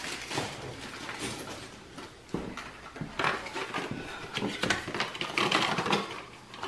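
Tissue paper rustling and a cardboard gift box being handled and opened, in irregular crinkly bursts with a few sharp clicks.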